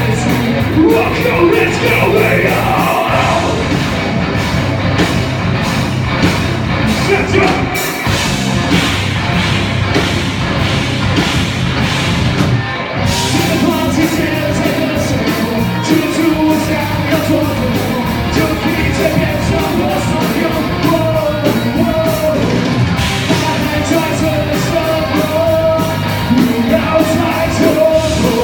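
A live rock band playing its song loudly, with the vocals sung and yelled over the full band.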